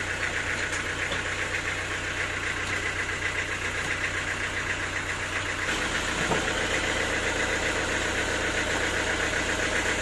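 Band sawmill's machinery running steadily with a rapid, even pulsing, with no cut being made into the log; the tone shifts slightly about six seconds in.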